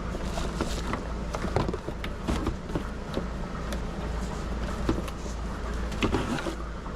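Cardboard box and packed shop-vac parts being handled: scattered rustles, scrapes and light knocks over a steady low hum.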